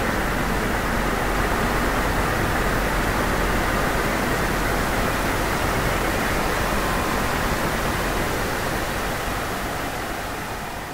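Electronic soundscape: a steady, dense noise drone, strongest in the middle range, fading out near the end.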